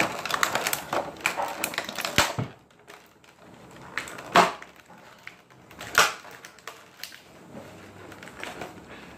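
Stiff clear plastic blister packaging crackling and clicking as it is bent and pried by hand, with a dense run of crackles in the first two seconds and two sharp, louder cracks about four and six seconds in.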